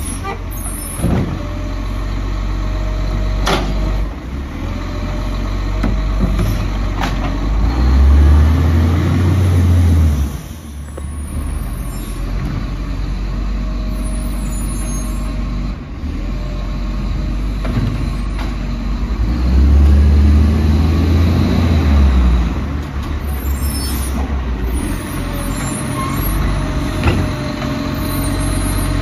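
Diesel engine of a side-loader garbage truck running, revving up hard twice for a couple of seconds each, about ten seconds apart. Scattered sharp knocks and brief hisses come in between.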